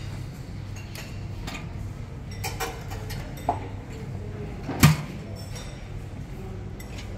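Dining-room clatter at a buffet: scattered clinks of crockery and cutlery over a steady low hum, with one sharp louder knock about five seconds in.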